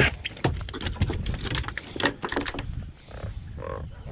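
Catfish flopping and slapping on a wet fiberglass boat deck: a quick irregular run of knocks and slaps. A few short, low, pitched tones come in near the end.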